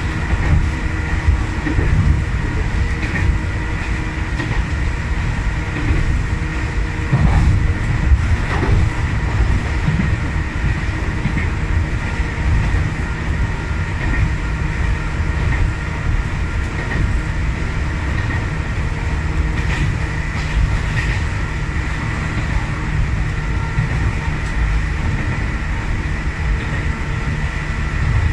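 Sangi Railway electric commuter train running, heard from inside the driver's cab: a steady low rumble of wheels and running gear with a faint steady high whine, and a few clacks over rail joints.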